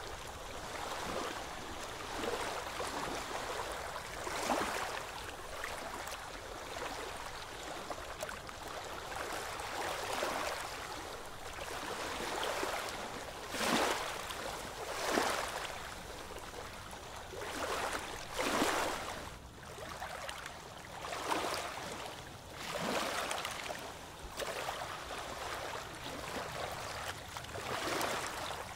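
Oars of a small wooden rowing boat dipping and pulling through calm sea water, a swishing splash at each stroke every couple of seconds over gentle water lapping.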